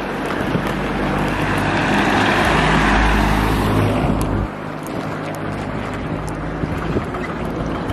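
A motor vehicle passing on the road: engine and tyre noise swells to a peak about three seconds in, then fades. Wind buffets the microphone.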